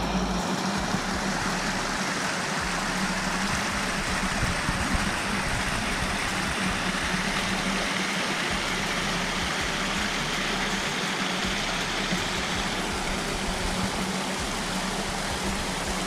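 Small waterfalls and a rocky creek cascading over boulders: a steady rushing hiss of falling water.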